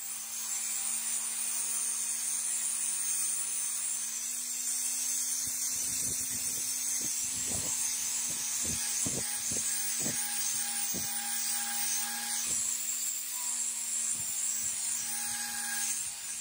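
Handheld grinder spinning a white abrasive disc against a steel katana blade to sharpen it: a steady motor hum under a hissing grind of the disc on the steel, with a run of low knocks in the middle.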